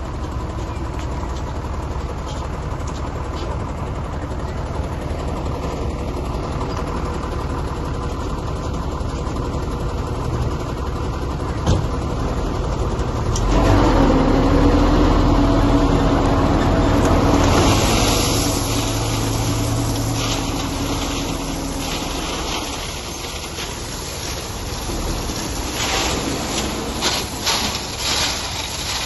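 Heavy construction machine engine running steadily, growing louder for a few seconds about halfway through as it works harder, followed by a hissing rush. A few sharp knocks come near the end.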